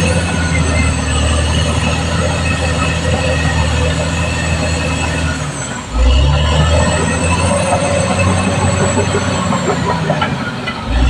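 Caterpillar D6R XL crawler bulldozer working: its diesel engine runs steadily under load while the steel tracks give a high-pitched squeal. The engine note sags briefly about six seconds in and again near the end, each time coming back louder.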